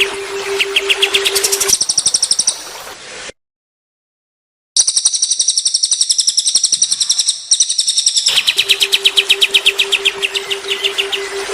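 Songbirds singing fast runs of repeated chirps and trills, some mid-pitched and some very high. The song cuts out to dead silence for about a second and a half, about three seconds in. A steady low hum sits under the birds at the start and again from about eight and a half seconds on.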